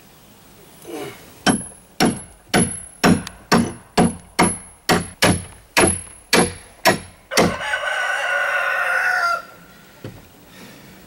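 A hammer struck about fifteen times, roughly two blows a second, each with a high metallic ring. Then a rooster crows once for about two seconds.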